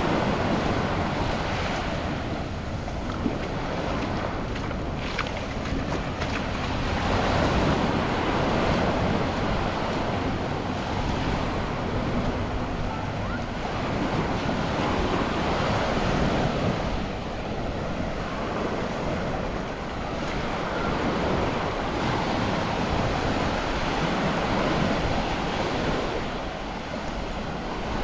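Surf breaking and washing up the beach, the sea noise swelling and ebbing every four or five seconds, with wind buffeting the microphone.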